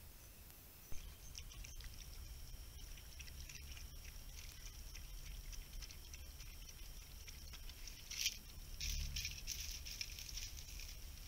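Foxes moving over dry leaf litter at a water basin: rustling and crackling footsteps, with lapping at the water, against a steady high-pitched tone. Two sharp clicks stand out, about a second in and about eight seconds in.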